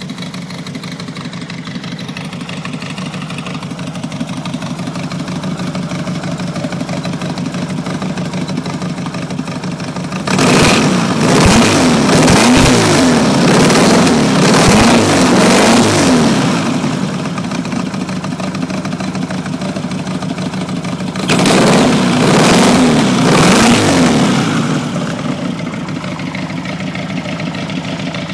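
A 1974 VW Beetle's 2010cc air-cooled flat-four stroker engine on dual Weber IDF 44 carburettors, idling steadily through a four-tip exhaust. About ten seconds in it is blipped by hand at the throttle linkage, revving up and down repeatedly for about six seconds, settles back to idle, then is revved again for about three seconds before returning to idle.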